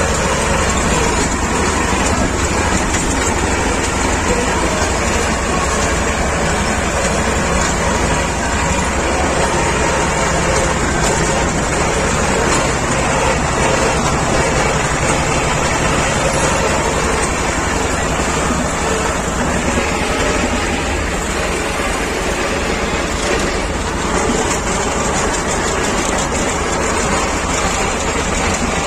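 T-25 Vladimirets tractor's two-cylinder air-cooled diesel running steadily under load while mowing with a cutter-bar mower.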